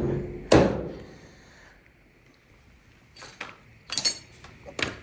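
A single solid knock about half a second in, then a quiet stretch and a few light metallic clinks and taps near the end, from handling the dryer's sheet-metal panel and its screws during reassembly.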